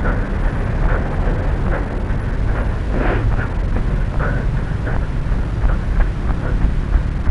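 Steady low rumble of wind and handling on a small camera carried by a running person, with repeated light knocks from the runner's strides.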